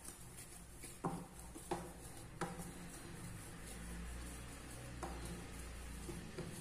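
Hands kneading a ball of maida dough on a wooden board: soft rubbing and pressing, with a few light knocks about 1, 1.7, 2.4 and 5 seconds in.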